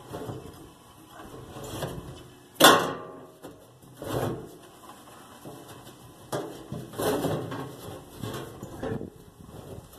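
Irregular knocks and scrapes of a 1958 Plymouth Suburban's steel fuel tank being manhandled up into place under the car, with one sharp knock, the loudest, about two and a half seconds in and smaller ones near four, seven and nine seconds.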